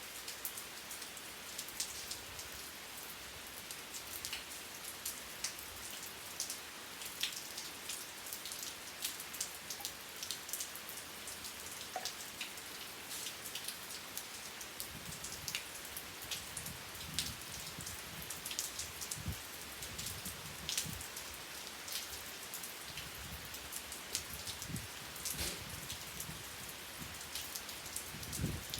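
Steady rain falling, a dense hiss of drops with many sharper individual drop ticks striking a surface. From about halfway through, soft low thuds of heavier drops join in.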